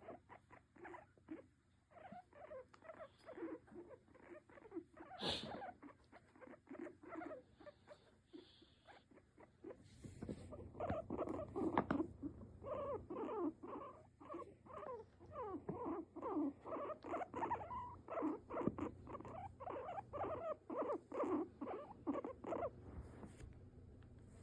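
Guinea pig on a lap making a long run of short, squeaky calls, several a second, which grow denser and louder about halfway through. A brief sharp knock sounds about five seconds in.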